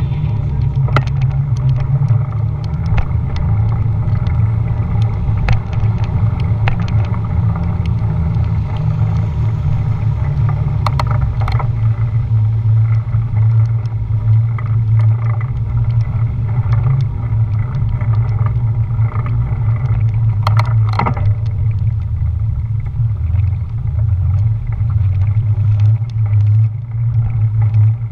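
Steady low rumble of wind and road noise on a GoPro Hero 4 Silver carried on a moving bicycle, with scattered sharp clicks and rattles.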